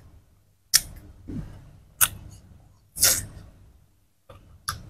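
Close-miked crisp, wet crunching of watermelon being bitten and chewed: four sharp crunches about a second apart, each fading quickly, with fainter clicks between.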